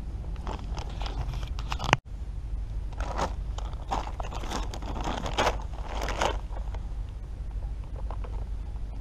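Knife cutting open a plastic ration-pack bag: scraping and crinkling of the bag in several short bursts, over a steady low rumble.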